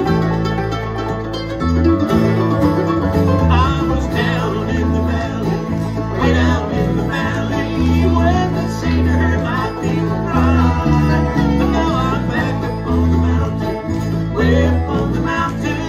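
Bluegrass band playing an instrumental passage on banjo, acoustic guitars, resonator guitar and bass guitar, with a steady bass line under it. A lead melody comes forward about three and a half seconds in.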